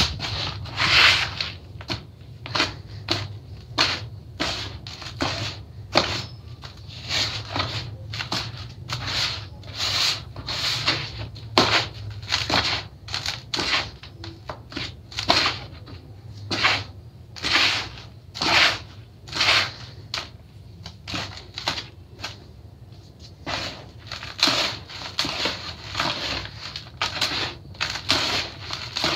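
Hands scooping, squeezing and crumbling a damp, gritty sand mix in a plastic tub: a crunchy, gritty swish with each handful, repeating irregularly about once or twice a second.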